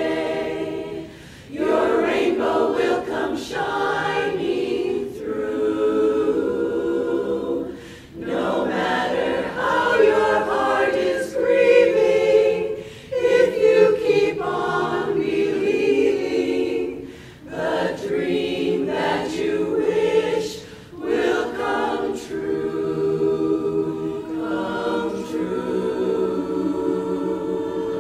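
Women's barbershop chorus singing a cappella in close harmony, sustained chords in phrases broken by brief pauses.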